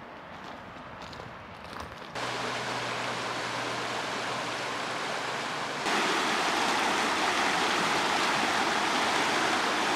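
Shallow, fast-flowing creek rushing and splashing over rocks in small rapids: a steady watery rush. It starts suddenly about two seconds in and becomes louder and closer about six seconds in.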